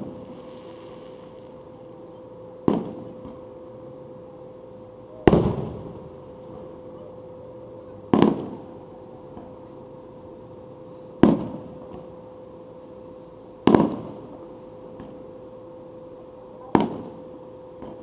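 Aerial fireworks shells bursting one at a time, six booms spaced about two and a half to three seconds apart, each trailing off in a rolling echo.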